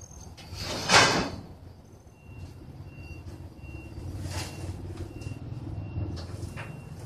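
Corrugated sheet-metal roofing scraping and rattling as it is slid over the arched steel bows on a truck bed, in three short noisy swishes, the loudest about a second in.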